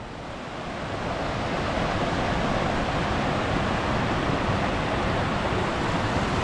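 Mountain stream rushing over boulders in small waterfalls, a steady rush of water that swells over the first second or so and then holds.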